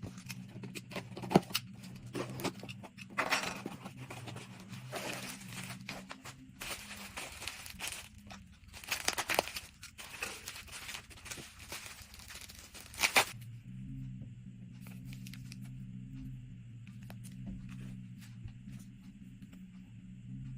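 Packaging being torn open and rustled by hand, with irregular tearing and crinkling and a few sharp snaps, for about the first thirteen seconds. After that only a steady low hum and a few faint clicks remain.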